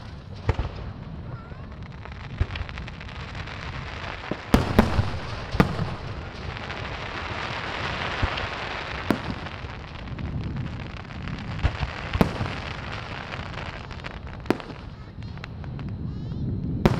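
Fireworks show: aerial shells bursting with about eight sharp bangs spread through, the loudest in a quick cluster about five seconds in. A long stretch of hissing crackle swells in the middle.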